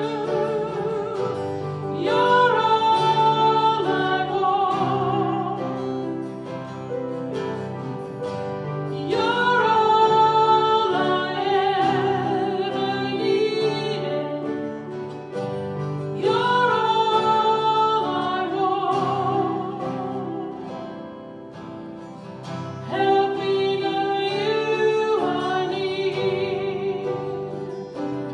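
Worship song: a singer holding long notes with vibrato over guitar accompaniment, a new phrase starting about every seven seconds.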